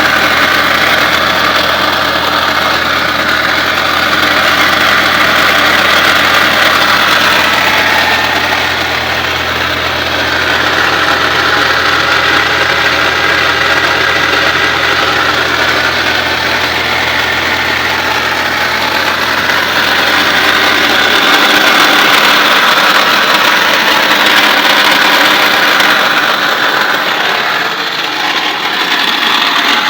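2003 Audi A4 1.8T turbocharged four-cylinder idling with a really bad, steady mechanical noise from its failed ("grenaded") A/C compressor. The low hum under it drops away about two-thirds of the way through.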